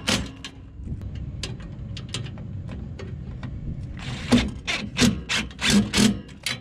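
Cordless drill-driver with a long bit extension, driving the screws that hold the furnace's gas burner assembly in place, with light metal clicks. Quieter handling at first, then from about four seconds in a quick run of short trigger bursts as the screws are run in.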